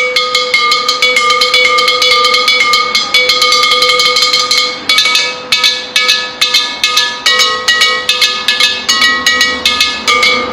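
Unglazed fired-clay (terracotta) pots struck in quick succession with two thin sticks, played as a row of tuned percussion: each tap gives a short ringing note, at several different pitches, in a rapid run that turns a little sparser about halfway. The clear ring with no rattle is the sign of sound, uncracked pieces.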